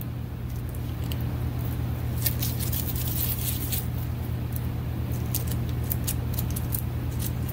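Disposable rubber gloves crinkling and crackling as a gloved hand flexes and rubs its fingers, in scattered short crackles from about two seconds in, over a steady low hum.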